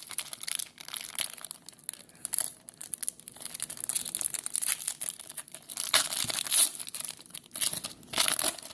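Plastic-foil wrapper of a trading card pack crinkling and tearing as it is opened by hand, in irregular crackles that get louder about two thirds of the way through.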